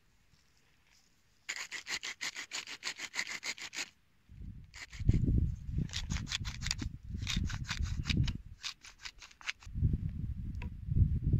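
Hand-twisted wooden spice mills grinding: a quick run of gritty ratcheting clicks about a second and a half in, as salt is ground, then after a short pause longer bouts of the same clicking from a black-pepper mill, with a low rumble underneath.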